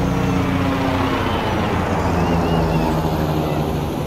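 An engine running close by, its pitch dropping about a second in.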